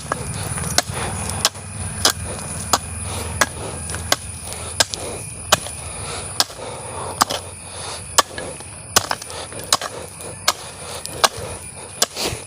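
A kaikottu (Kerala hand hoe) chopping into loose, freshly ploughed, rain-damped soil with a steady rhythm of sharp strikes, about three every two seconds.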